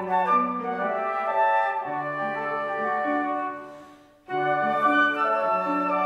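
Trio of concert flutes with piano accompaniment playing a classical piece in held melodic notes. The music fades away about three and a half seconds in, a brief silence, and the flutes and piano come back in together just past four seconds.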